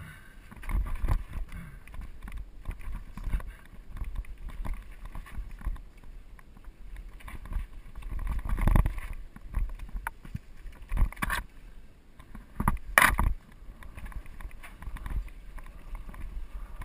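A steel hardtail mountain bike, a GT Peace 9'r, riding over rocky dirt singletrack. The frame and parts rattle and clunk as the tyres crunch over stones, with irregular knocks throughout and harder jolts about nine and thirteen seconds in, over a low rumble of wind on the microphone.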